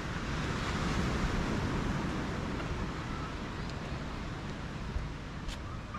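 Beach ambience: a steady rushing noise of wind and small surf, swelling for a moment about a second in.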